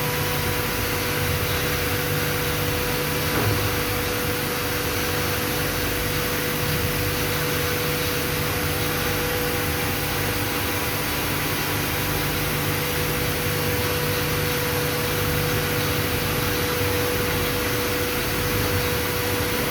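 Steady mechanical hum and hiss of a Pattyn box-making machine running, with a few steady whining tones over it.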